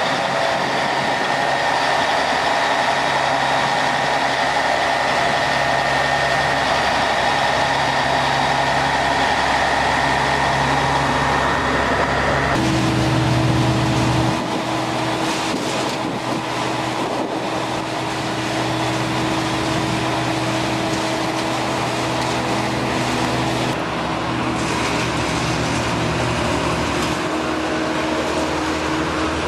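A motor vehicle's engine running steadily. Its tone shifts about twelve seconds in and settles into a new steady pitch a little later.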